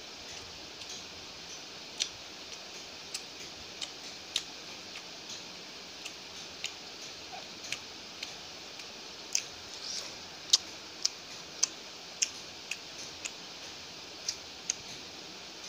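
A person chewing food, with sharp wet mouth clicks at irregular intervals, the loudest bunched a little past the middle, over a steady hiss.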